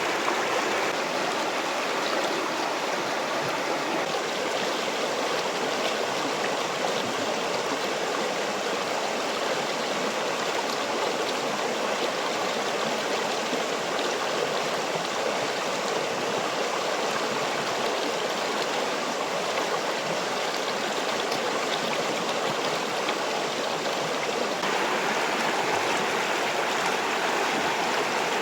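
Fast-flowing river rushing steadily, a little louder and brighter near the end.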